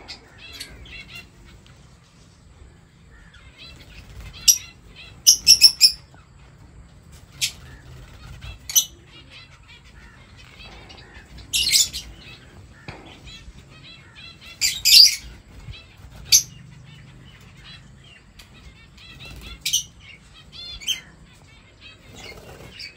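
Lovebirds in an aviary giving short, shrill, high-pitched chirping calls in separate bursts, about nine times, with quieter stretches between.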